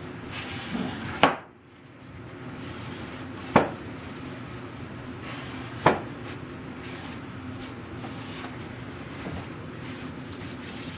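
Hand work on wood: rubbing, with three sharp knocks spaced a couple of seconds apart, over a steady low hum.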